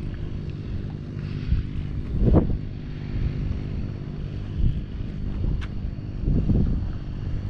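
An engine running steadily with a low, even drone, with a couple of short rumbling gusts on the microphone.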